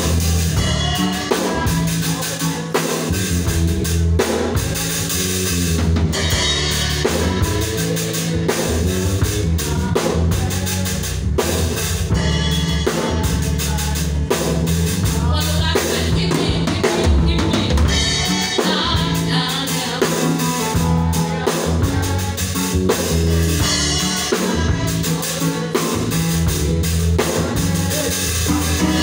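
Rock band music with a full drum kit and a prominent, moving bass line, which the keyboard player plays as a bass-line demo.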